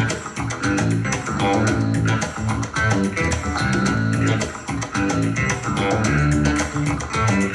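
Rock music with prominent bass guitar and guitar, played back through a portable speaker for a sound test.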